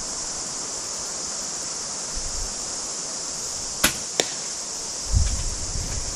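Steady high-pitched hiss of outdoor background noise, broken by two sharp clicks about a third of a second apart just before four seconds in, then a low rumble of handling or wind near the end. The clicks fit a bolt-action rifle being worked between shots.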